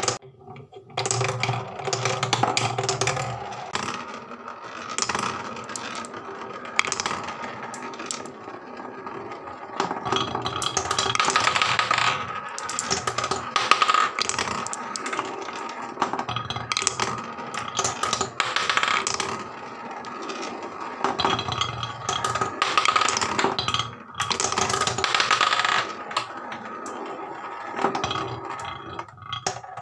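Marbles rolling and clattering down a wooden marble run: a steady rolling rattle broken by many sharp clicks and knocks as they drop through a wooden funnel and run along the wooden tracks and a plywood spiral.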